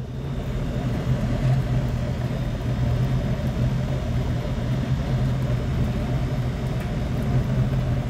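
Steady low machine hum of a running outdoor air-conditioning condenser unit close by, swelling over the first second and then holding.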